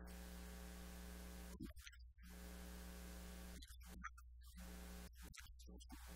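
Faint electrical mains hum with a buzz on top that drops out twice for under a second, the low hum carrying on underneath.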